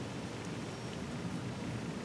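Steady low rushing noise with no distinct footsteps, calls or other events.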